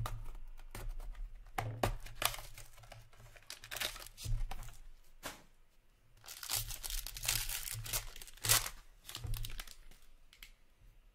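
Foil wrapper of an SPX hockey-card pack torn open by hand and crinkled, with scattered rustles and clicks as the cards are pulled out.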